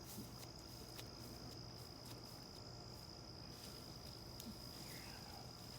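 Faint, steady, high-pitched trill of a cricket, with a few light clicks.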